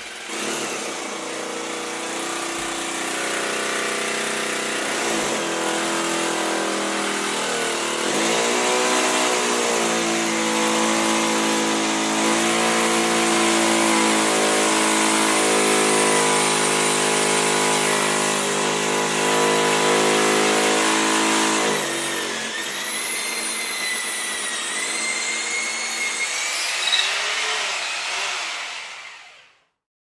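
Electric hammer drill running and hammering into concrete with a steady buzzing clatter. Its pitch dips about eight seconds in, and after about twenty-two seconds the humming gives way to a high wavering whine until the sound stops near the end.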